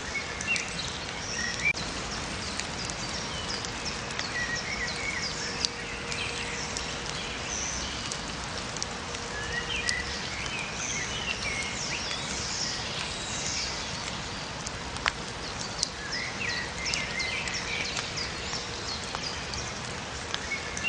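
Steady rain falling with many birds chirping and singing over it, and now and then a sharp drip or tap.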